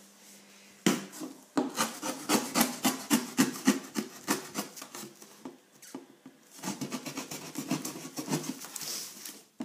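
Scissor blade stabbed into the top of a cardboard box and sawn through it: a sharp crack as it punctures, then a quick run of rasping strokes that stops briefly about halfway and then resumes.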